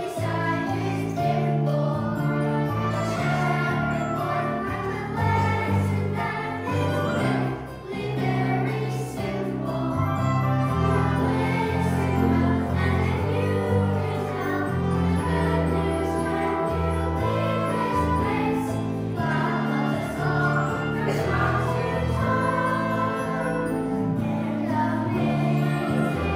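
A choir singing with instrumental accompaniment, continuous and steady in level, over a bass line that changes note every second or two.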